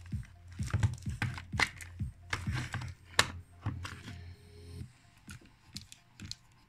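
Irregular small clicks and taps of a small screwdriver and plastic parts as a tiny screw is driven into a headphone's plastic ear cup to hold the speaker. The clicks come thick for about five seconds, then thin out to a few faint ticks.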